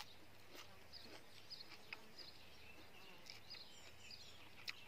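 Near silence outdoors: faint, scattered bird chirps over a low steady background hum, with a few soft clicks from handling and eating food.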